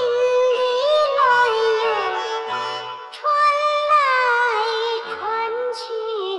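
Background music: a song with a singing voice carrying a gliding melody over light accompaniment.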